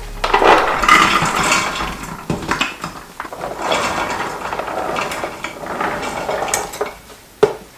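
Chickpeas being tipped from a container into an Instant Pot's metal inner pot: a dense rattle of many small clicks in two spells, with a single sharp knock near the end.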